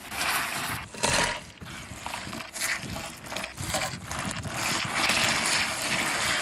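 Hot oil sizzling as vegetable chilli sticks deep-fry, the hiss swelling and easing unevenly.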